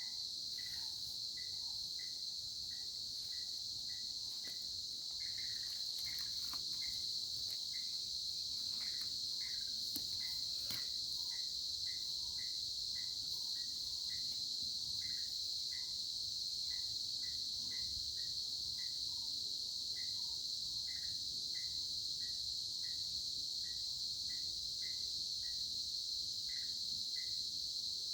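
Insect chorus: a steady, high-pitched trilling hum, with short chirps repeating about every half second over it.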